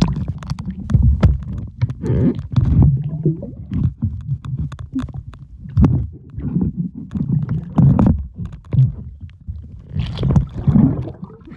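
Muffled, choppy rumbling and sloshing of pool water heard through a camera microphone held underwater, with scattered clicks. A wider bubbling rush comes near the end as bubbles stream past.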